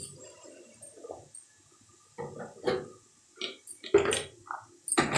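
A few irregular knocks and clattering handling sounds, the loudest about four seconds in and just before the end.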